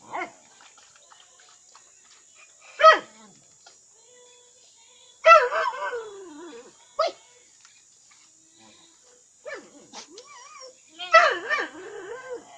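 A pack of dogs begging for food, giving short yips and whines in about six separate bursts with quiet gaps between them; the longest, about a second, comes a little past the middle.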